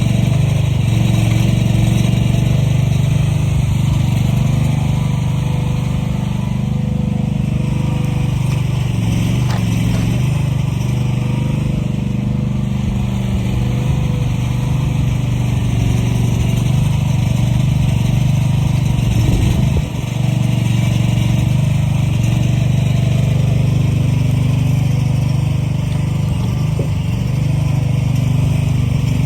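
Engine of heavy equipment running steadily under work, a deep continuous hum that barely changes, with a short dip about two-thirds of the way through.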